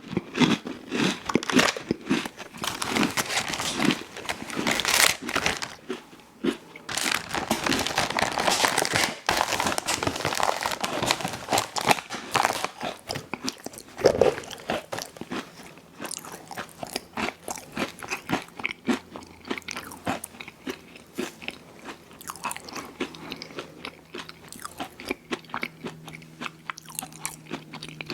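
A person eating ice cream sandwiches close to the microphone, biting and chewing with wet, crackly crunching. The chewing is heavier at first and lighter and sparser in the second half.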